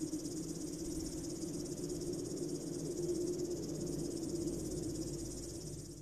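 A steady high-pitched buzz with a fine, rapid pulse, like insects, over a low steady hum. It fades out near the end.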